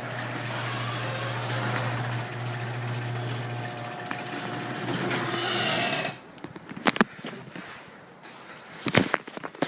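A 1/2 hp garage door opener's motor running with a steady hum as it drives the door, cutting off about six seconds in. A couple of sharp knocks follow, about two seconds apart.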